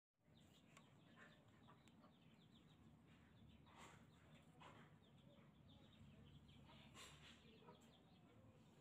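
Near silence: faint outdoor background with many small birds chirping, and a few soft rustles and clicks as the rusty scissors are handled in a cloth work glove.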